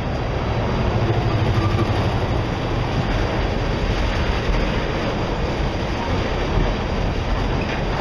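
Freight train tank cars rolling past: a steady rumble and rattle of steel wheels on the rails.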